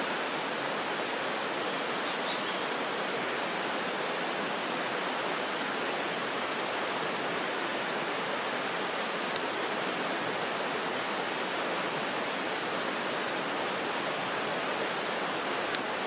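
Steady rush of a nearby river, an even hiss that does not change, with two brief sharp clicks, one about halfway through and one near the end.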